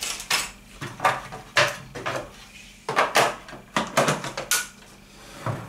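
Hard plastic knocks and clicks, a string of them, as a sewing machine's snap-on free-arm accessory box and a small bag of accessories are handled and the box is pushed onto the machine's arm.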